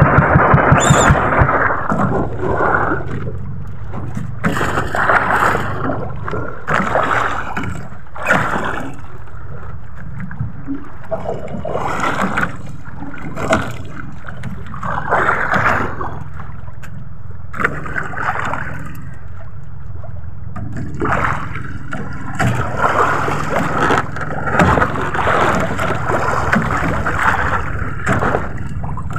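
Sea water sloshing and splashing against the hull of a small outrigger boat, in swells every second or two, over a low steady hum.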